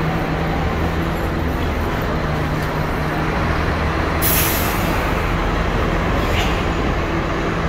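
Bus diesel engine running steadily with a deep rumble. About four seconds in there is a short, sharp hiss of air-brake release, and a fainter hiss follows about two seconds later.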